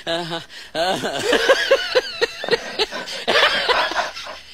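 People laughing, with a run of short, evenly spaced laughs in the middle, among bits of voice.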